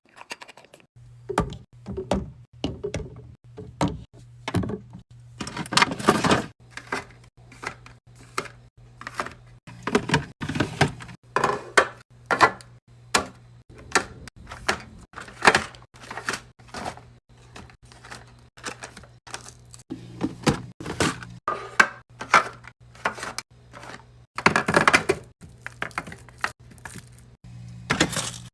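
Drinks and snacks being set into a mini fridge during a restock: a steady run of thunks, clicks and knocks as cans, bottles and packets are placed and shifted, with some rustling of packaging, over a low steady hum that begins about a second in.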